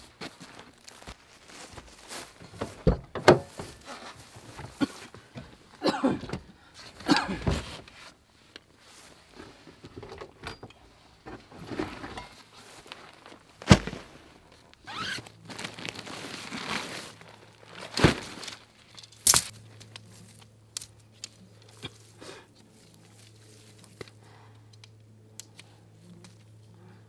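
Gear being handled: footsteps, rustling and rummaging with sharp clicks and knocks, then quieter small clicks as tent pole sections are fitted together near the end.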